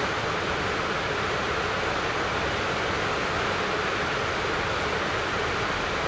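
Heavy rain pouring down steadily: an even, unbroken hiss.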